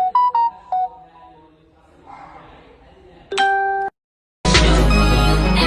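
A quick run of short electronic beeps at different pitches, then a single longer beep about three seconds in. Music starts about four and a half seconds in.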